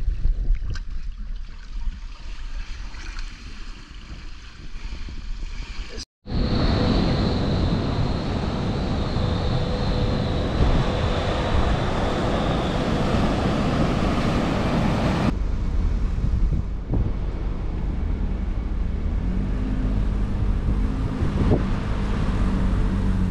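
Waves and rushing water with wind buffeting the microphone. The sound cuts out sharply about six seconds in, returns louder, and eases off about fifteen seconds in; music comes in faintly near the end.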